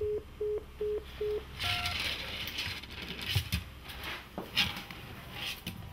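Mobile phone earpiece sounding four short beeps of a busy tone, the call not getting through, then one higher beep. After that, several scattered knocks and scuffling noises.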